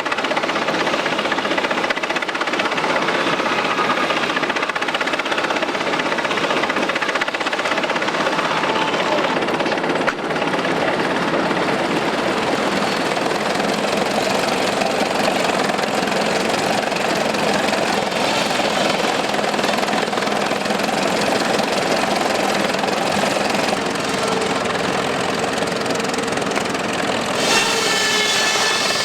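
Turn-of-the-20th-century sawmill machinery running, a steady dense mechanical clatter. Near the end a high-pitched whine rises over it for a second or two.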